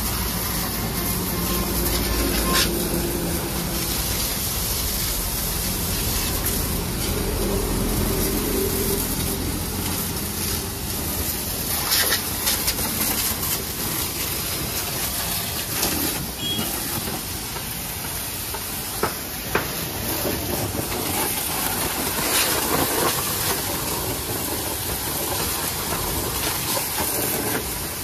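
High-pressure washer jet spraying water onto a mud-caked tractor wheel and rotary tiller: a steady hiss with a few sharper splashes as the jet moves across the metal.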